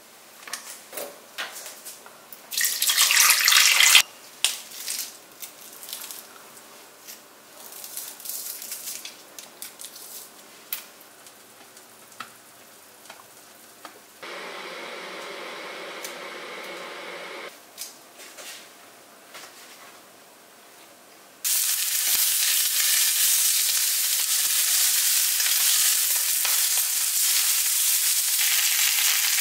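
Chicken legs sizzling steadily in oil as they sear in a frying pan, starting loudly about two-thirds of the way through. Before that come scattered light clicks and two short bursts of rushing noise from kitchen work.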